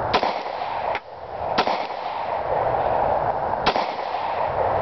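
Three shots from a Glock 23 .40 S&W pistol, irregularly spaced over a steady background hiss. No ring from the steel target follows: the shots miss.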